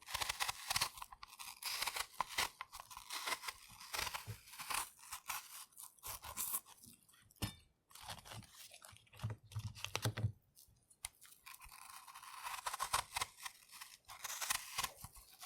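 A knife peeling the skin off a green apple: crisp, irregular scraping and crunching strokes with short pauses, going quiet for a moment about seven seconds in and again near eleven seconds.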